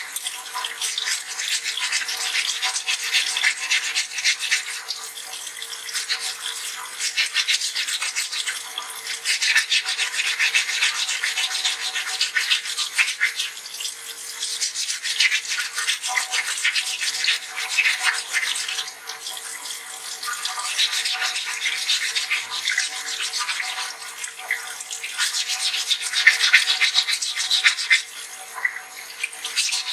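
Fine 220-grit waterproof sandpaper rubbed rapidly back and forth on a wet dental-stone model, a fast scratchy rasping in spells of a few seconds with short pauses, over tap water running into a sink.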